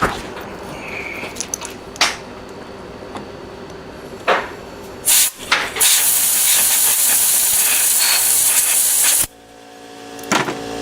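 Compressed air blowing dirt out of a bearing: two short blasts, then one steady blast of about three and a half seconds that cuts off sharply. A quieter steady hum with a few fixed tones follows.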